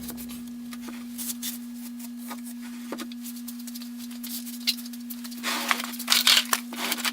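Woodworking clamps being set and tightened on a freshly glued frame: scattered clicks and knocks, then a burst of sharp rasping clicks about five and a half seconds in, over a steady low hum.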